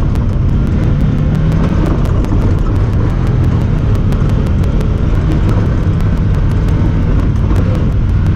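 Honda Talon 1000R side-by-side's engine running steadily while driving, with a fast, regular ticking over it that comes from the camera, not the machine.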